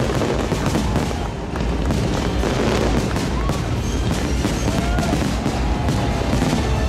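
Aerial fireworks in a dense finale barrage: overlapping booms and crackling bursts, one after another, over a steady low rumble, with a few short whistles.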